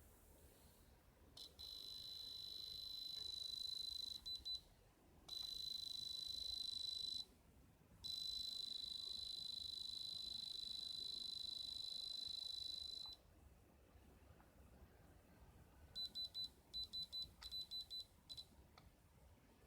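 Electronic gem or diamond tester beeping as it is held against the stone. It gives a steady high tone held for a few seconds at a time, three times over, then a run of short quick beeps near the end.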